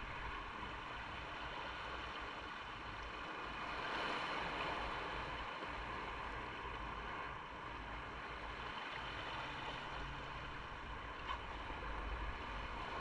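Steady wind noise on the microphone with a low rumble underneath, even throughout and with no distinct events.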